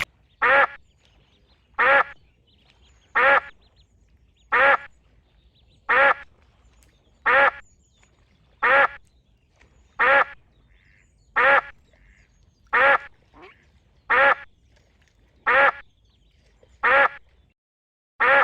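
A duck quacking: about fourteen single, identical quacks at an even pace, one roughly every second and a half.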